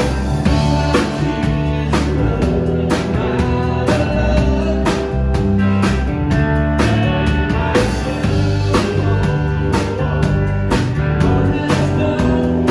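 Live country band playing with singing: drum kit keeping a steady beat under bass and electric and acoustic guitars.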